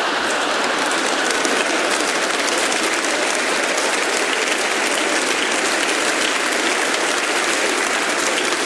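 A large audience applauding: dense, steady clapping that holds at an even level throughout.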